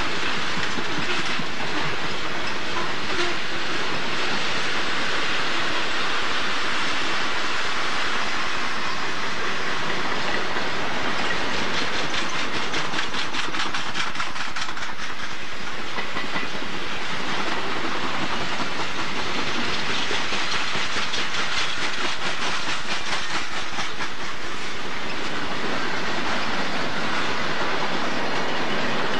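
Union Pacific freight train's boxcars rolling past: a steady noise of steel wheels on rail, with a stretch of rapid clickety-clack near the middle.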